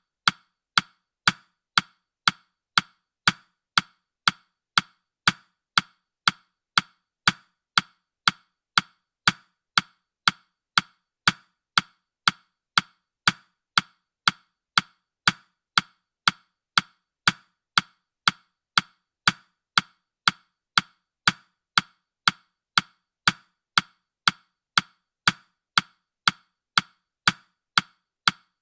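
Countdown timer's ticking sound effect: short, sharp ticks, evenly spaced at about two a second.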